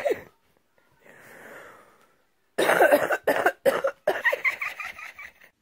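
A person's voice in short, harsh bursts like coughing: one brief burst at the start, then a loud run of bursts from about halfway in that stops near the end.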